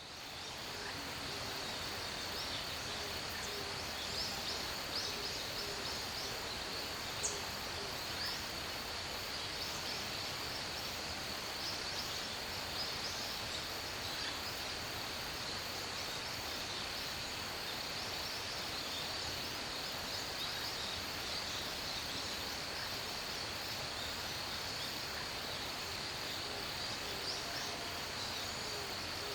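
Forest ambience: a steady, high-pitched insect hum over an even background hiss, with short bird chirps scattered through the first half and one sharp click about seven seconds in.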